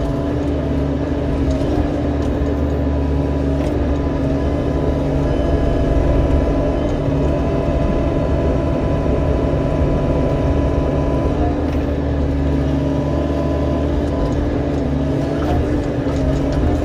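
Diesel engine of a compact earthmoving machine running steadily at a constant speed, with a few faint clicks.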